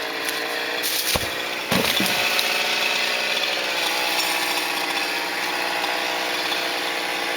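Chainsaw running steadily under load, sawing through Douglas fir wood, with a couple of brief sharp knocks in the first two seconds.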